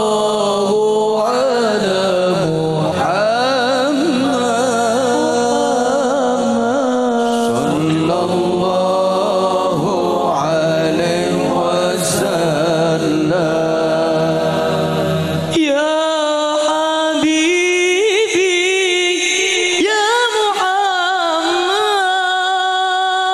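Male voices singing an Arabic sholawat devotional song through microphones, in long ornamented, wavering lines. A held low accompaniment under the voice drops out about two-thirds of the way through, leaving the singing alone.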